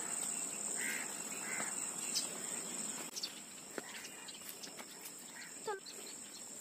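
Insects chirring in a steady high-pitched drone, louder in the first half and fading a little after about three seconds.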